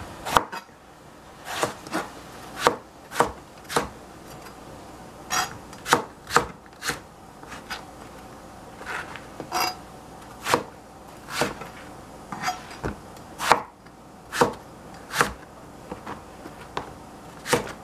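Chef's knife chopping a long purple eggplant on a plastic cutting board: irregular sharp knocks as the blade strikes the board, mostly a second or less apart, with short pauses between runs of cuts.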